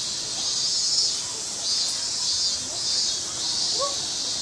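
Chorus of insects: a steady high-pitched buzzing that swells and fades about every three-quarters of a second.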